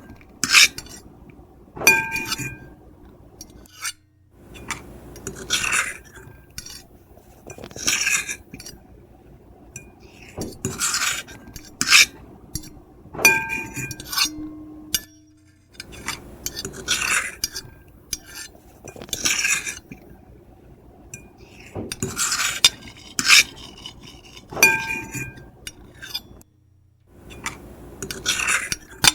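Metal fork and knife scraping across a plate in short repeated strokes, one every second or two, each a harsh, high rasp. Now and then the cutlery clinks and the plate rings briefly.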